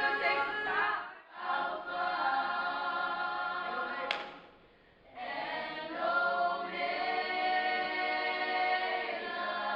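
Choir singing held notes in harmony, breaking off briefly about a second in and again for about a second midway.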